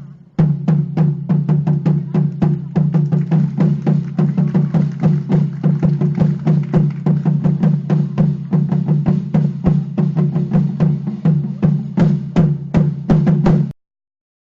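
Percussion music: rapid, uneven drum hits over a steady low tone, cutting off abruptly about a second before the end, then silence.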